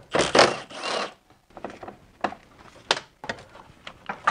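Clatter of hand tools being handled for about a second, then a few separate sharp metal clicks and knocks.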